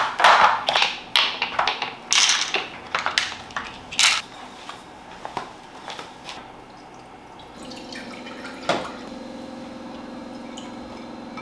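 Silicone ice-cube trays being handled on a kitchen counter: a quick run of knocks and crackly clatter, then scattered small knocks. A steady low hum comes in about three-quarters of the way through.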